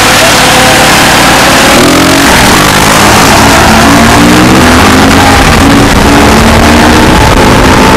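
Motorcycle engine accelerating hard through the gears, its pitch climbing and dropping back several times as it shifts up, under a heavy rush of wind on the microphone.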